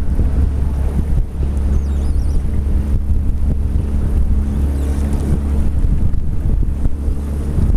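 Boat's outboard motor running steadily under way, a constant low drone, with wind buffeting the microphone.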